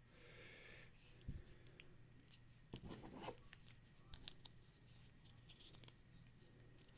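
Near silence, broken by a few faint clicks and scrapes of small plastic action-figure parts being handled and pressed together, most of them about a second and about three seconds in.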